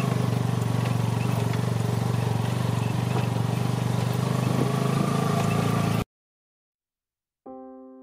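Motorbike engine running steadily with wind rushing over the microphone while riding. It cuts off abruptly about six seconds in, and after a second and a half of silence, electric piano music starts near the end.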